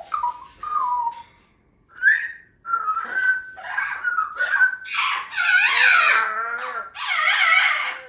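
African grey parrot whistling and calling: a few short whistled notes, then louder, wavering calls from about five seconds in.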